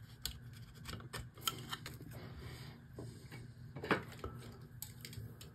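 Faint, scattered small clicks and taps of fingers handling a small 3D-printed PLA part and bending the fine wire leads of miniature LEDs, with one louder tap a little before four seconds in.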